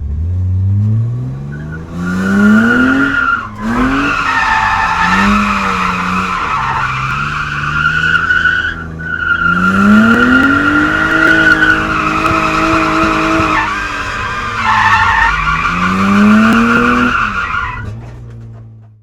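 A car drifting: the engine revs up and drops back several times while the tyres squeal in a long, loud screech. The screech breaks off briefly twice, and the sound fades out near the end.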